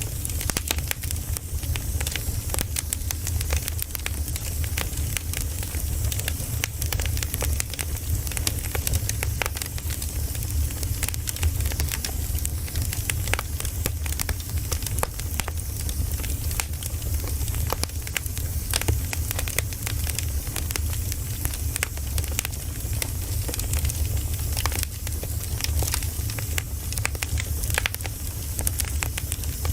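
Campfire burning steadily, with dense, irregular crackles and pops over a soft hiss and a low, steady rumble underneath.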